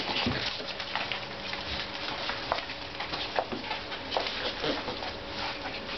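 Puppies playing on a carpet: paws scrabbling with scattered light clicks and scuffs, and something being tugged and rustled.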